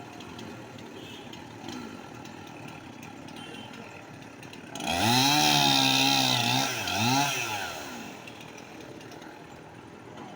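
Chainsaw engine revving up hard about five seconds in and holding for about two seconds, then dropping and revving once more briefly before falling back.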